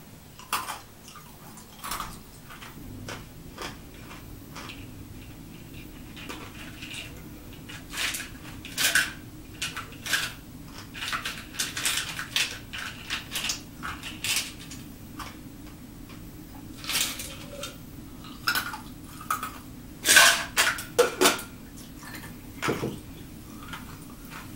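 Ice cubes clinking and rattling in a clear plastic cup tipped up to the mouth, with scattered sharp crunches of ice being chewed, the busiest stretches in the middle and about 20 seconds in.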